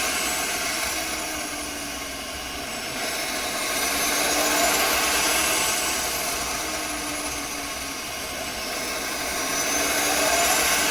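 Turbochargers on a homemade compound twin-turbo furnace spooling, a high whistle over a steady rush, swelling and easing about every six seconds.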